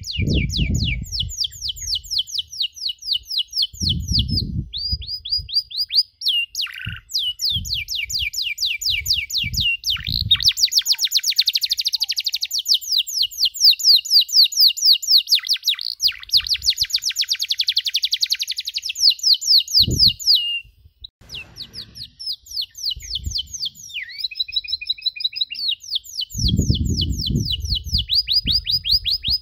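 Domestic canary singing a long, fast song of rapid repeated chirps and trills, with a short pause a little past two-thirds of the way through.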